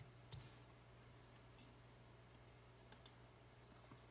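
A few faint clicks of a computer mouse button, including a quick pair about three seconds in, over a faint steady hum.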